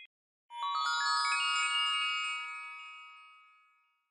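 Magic-sparkle chime sound effect: a quick upward run of glockenspiel-like bell notes that ring on together and slowly fade away over about three seconds.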